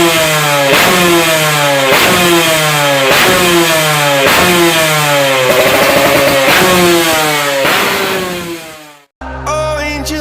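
Yamaha RX-King two-stroke single-cylinder engine with an under-belly exhaust, revved in repeated quick throttle blips a little more than once a second, the revs falling away after each. The revving fades out about nine seconds in and music starts.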